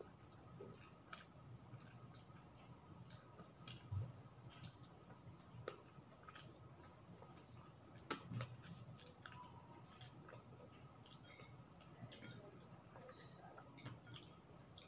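Faint eating sounds of someone eating chicken adobo and rice by hand: chewing, small mouth clicks and fingers working the food on the plate, with soft knocks about four and eight seconds in.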